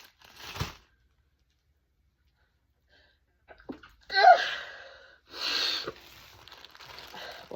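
A woman sneezing: a quick breath in, then a sharp, loud sneeze about four seconds in, followed a second later by a second, breathier burst.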